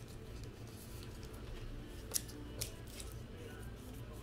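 Light handling of trading cards and packs, with a few sharp snips or clicks, the loudest about two seconds in, over a low steady hum.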